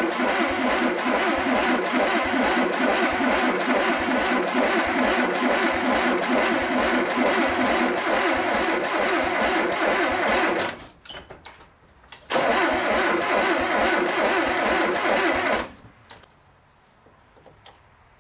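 1985 VW T3's carbureted water-cooled flat-four (Wasserboxer) turned over on the starter with the ignition off, cranking evenly for about ten seconds, then pausing and cranking again for about three seconds. This is priming cranking after the engine rebuild, to build oil pressure and draw fuel into the carburettor.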